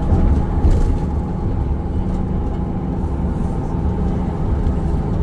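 A LiAZ 5292.67 city bus under way, heard from inside the passenger cabin: its compressed-natural-gas YaMZ-53624 engine runs at a steady hum with road noise.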